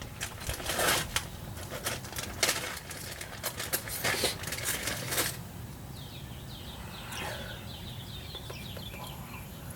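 Clicks and rustling from handling new brake pads and their small metal clips, through the first five seconds or so. About six seconds in, a bird chirps in a quick series of short rising calls.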